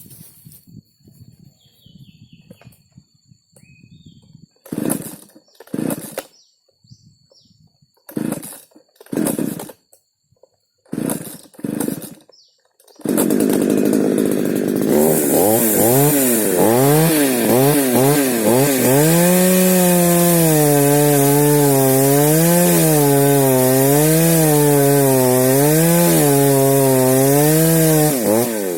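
A two-stroke chainsaw being pull-started: several short loud yanks on the starter cord, in pairs. About halfway through, the engine catches and runs loud, its pitch rising and falling about once a second, then it drops away near the end.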